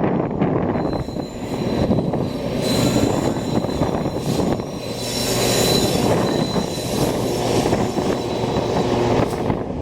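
Norfolk Southern train rolling past with a steady rumble, its wheels giving a thin, high squeal through the middle seconds, with wind buffeting the microphone.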